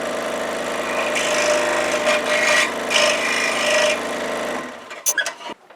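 Scroll saw running with a number 9 blade cutting through 3/4-inch red oak, a steady motor hum under the rasp of the blade. The saw stops about four and a half seconds in, followed by a few light clicks.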